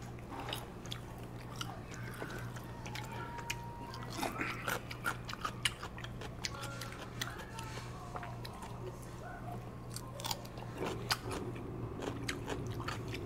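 Chewing and biting food, with many scattered light clicks and a steady low hum underneath.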